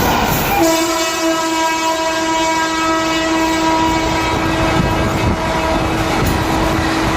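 Express train going through a station, its locomotive horn sounding one long held blast whose pitch drops a step about half a second in, over the continuous rumble and clatter of the train on the rails.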